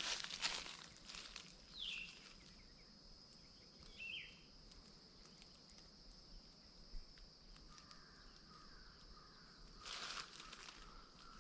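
Quiet forest ambience: two short, falling bird chirps a couple of seconds apart over a faint steady high-pitched hum. Footsteps crunch through dry leaves and ground cover at the very start and again near the end.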